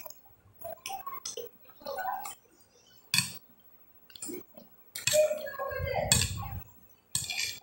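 Metal fork clinking against a glass plate in short, scattered clicks, one sharp clink about three seconds in, with chewing and mouth sounds between.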